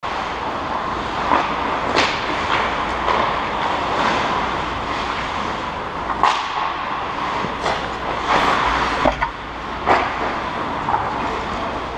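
Ice hockey rink sound: a steady hiss of skate blades and rink noise, broken by sharp cracks of sticks and pucks on the ice every second or two.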